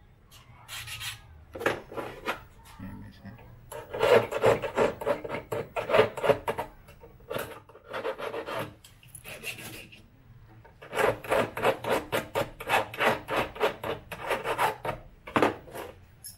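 Metal file rasping back and forth on a key in quick strokes, about five a second, in several runs with short pauses between them.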